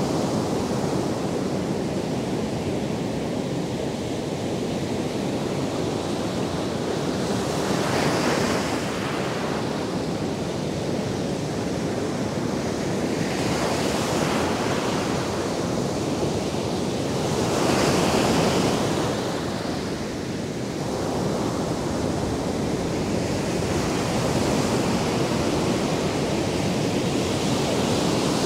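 Ocean surf breaking and washing up a sandy beach: a continuous rushing wash that swells louder every few seconds as each wave breaks.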